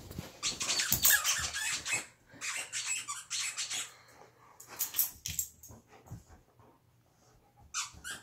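A dog chewing a squeaky toy, setting off quick runs of squeaks in several bursts, with a pause of about a second and a half near the end before the squeaking starts again.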